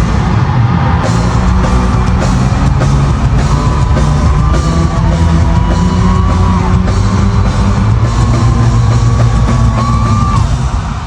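Live band playing loud rock-style music through an arena sound system, with a heavy, steady drum beat and a gliding lead melody over a deep bass line, heard through a phone's microphone from within the crowd.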